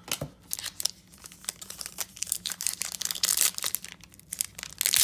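Foil wrapper of a trading card pack crinkling and tearing as it is handled and opened: a dense run of small crackles that grows louder toward the end.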